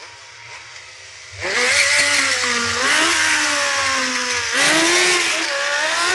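Sport motorcycle engine revving hard and wavering in pitch during a rear-wheel burnout. It comes in about a second and a half in, dips briefly near the middle, rises again and cuts off at the end.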